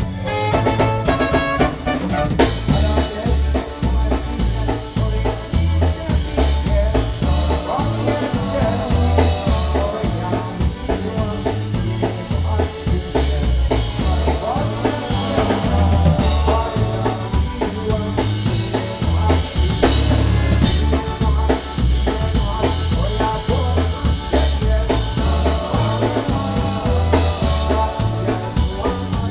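Live polka band playing a polka, with the drum kit prominent over a steady bass beat.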